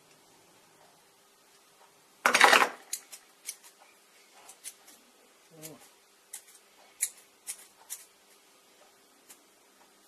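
Pliers and small aluminium parts being handled on a wooden workbench: one louder metallic clatter about two seconds in, then a run of light, scattered metal clicks.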